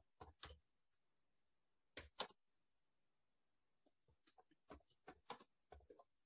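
Faint clicking of computer keyboard keys as words are typed: a few taps at the start, two sharper ones about two seconds in, then a quicker run of taps near the end.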